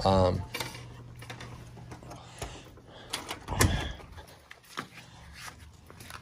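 Glass-paneled exterior door being opened and pulled shut: light latch and handle clicks, with the door closing in a heavier knock about three and a half seconds in.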